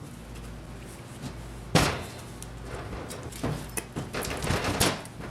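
Knocks and clicks of metal motorcycle engine parts being handled and fitted during engine assembly: one sharp knock about two seconds in, then a run of lighter clicks and taps.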